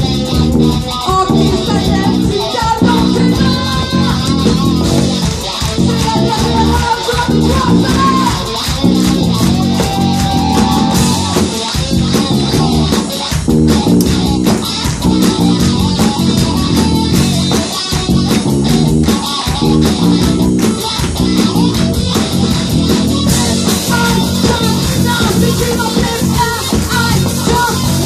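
Live rock band playing loud, with electric guitar, bass guitar and drum kit keeping a steady beat, and a violin line over them.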